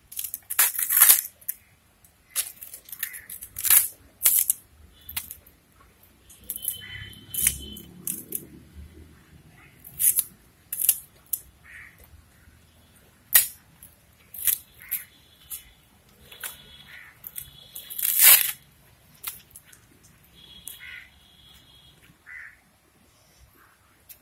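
Dry coconut palm fronds and a dried coconut flower sheath being snapped and torn apart by hand for fire kindling: a string of sharp, uneven cracks and crackles. A bird calls briefly now and then.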